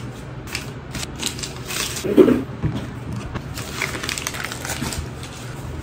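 Paper receipts being crumpled and crinkled by hand in irregular crackling handfuls, with one dull knock about two seconds in.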